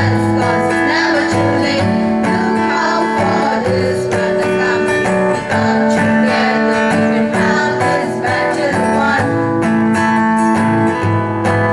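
Music: an acoustic guitar strumming chords in a steady rhythm as the instrumental part of a song.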